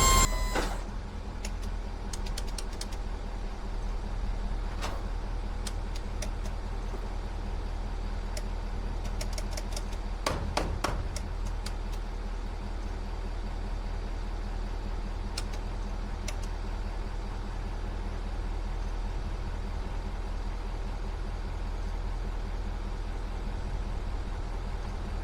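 Truck engine idling steadily, with scattered light clicks now and then, a dense run of them about ten seconds in.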